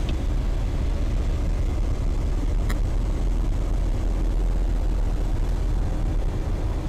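Eurofox light aircraft cockpit noise with the engine throttled back to idle in a descent: a steady low drone of engine, propeller and airflow, heard through the headset intercom. A brief click about two and a half seconds in.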